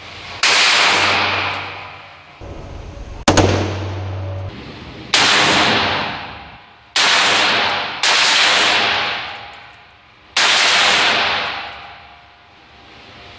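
About six short bursts of full-automatic fire from AR-15-pattern rifles, each lasting under a second, with a long echo dying away after each burst.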